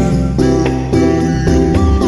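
Background music with a bright, jingling bell-like sound and notes starting at a steady pace.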